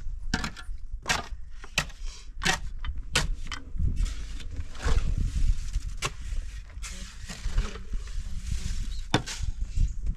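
Sharp knocks and clicks of stones and concrete blocks being handled, coming about every 0.7 s for the first few seconds and then more scattered, over a steady low rumble.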